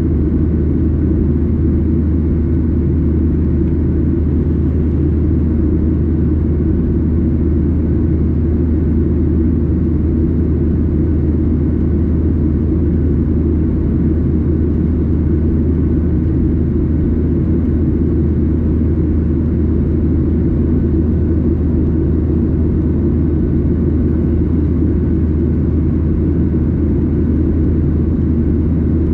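Steady, unchanging drone of a Boeing 737-800 heard from inside the passenger cabin: the low rumble of the CFM56 engines and the airflow around the fuselage, with a strong deep hum.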